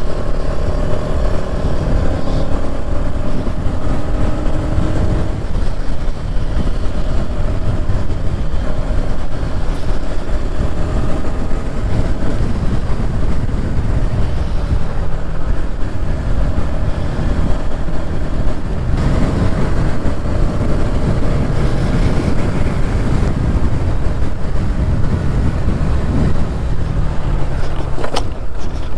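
Bajaj Pulsar NS200's single-cylinder engine pulling at speed through bends, its pitch rising and falling over the first few seconds, under heavy wind rumble on the mic. Near the end comes a sharp knock as the bike runs off the road into a crash.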